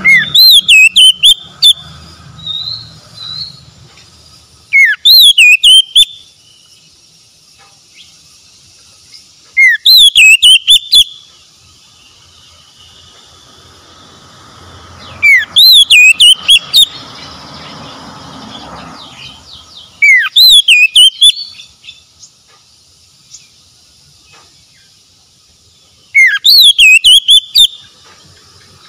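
Oriental magpie-robin singing: the same loud, short whistled phrase, ending in a fast high warble, repeated six times about every five seconds.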